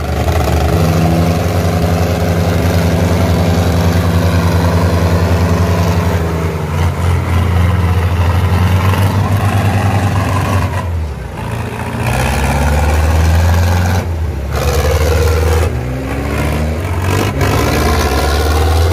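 Diesel farm tractor engines running hard under heavy load as the tractors pull against each other in a tug-of-war. The engine note is steady at first and dips partway through. In the second half the sound breaks off abruptly a few times, and the pitch rises and falls.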